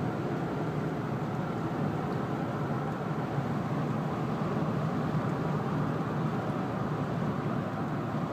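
Steady running sound of a 1998 Ford Expedition's 4.6 L V8, with a faint droning harmonic tone. This noise is new and getting worse, and the owner suspects the newly installed belt tensioner.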